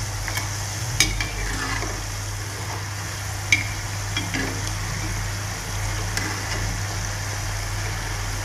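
Rice-flour ring murukku deep-frying in hot oil with a steady sizzle, while a perforated steel ladle stirs and turns them. There are a couple of sharp clicks about a second in and again about three and a half seconds in. The frying has settled to the stage where the rings are cooked and ready to turn.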